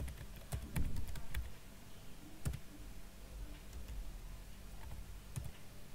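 Typing on a computer keyboard: irregular key clicks, a quick run of keystrokes in the first second or so, then a few scattered presses, over a faint steady low hum.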